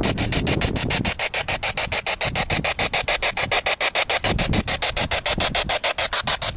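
Spirit box sweeping rapidly through radio stations: a steady stream of static and snatches of broadcast sound, chopped in and out several times a second.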